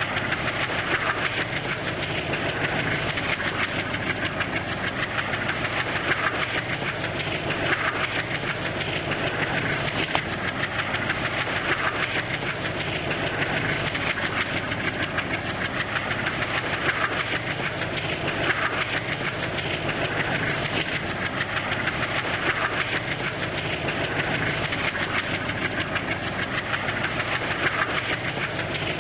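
Indian Railways train running along the track: a steady rolling noise of wheels on rails, with a regular clickety-clack from the rail joints about every second and a half.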